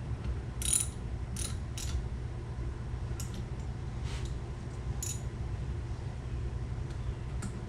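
Scattered light metallic clicks and clinks of hand tools and bolts being handled while the intake manifold is fastened to the engine, about seven in all, with a steady low hum underneath.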